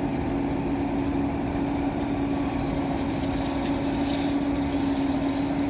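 John Deere 9500 combine running under load while harvesting soybeans: a steady mechanical drone with one constant hum in it.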